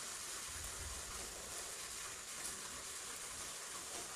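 Steady, low hiss of background noise with no speech.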